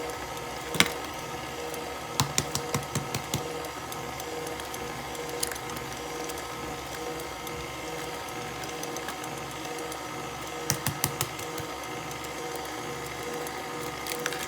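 Electric mixer running steadily as it mixes cake batter, with sharp taps and clicks now and then: one about a second in, a quick run of taps a couple of seconds in, and another short run about eleven seconds in.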